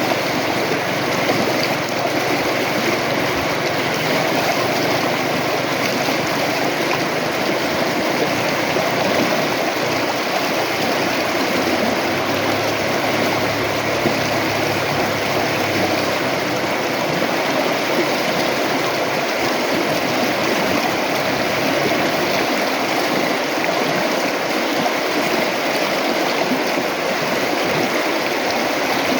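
River water flowing, a steady even rush with no breaks or changes.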